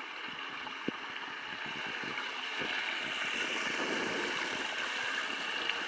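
Seawater washing and trickling among flat shoreline rocks, a steady rush that grows louder about halfway through. A single sharp click comes about a second in.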